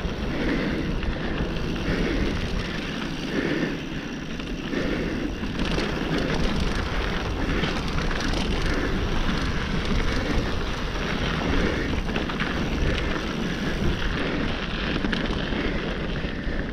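Mountain bike riding fast down a dry dirt singletrack: the tyres run steadily over packed dirt and loose small stones, with wind rushing over the camera microphone.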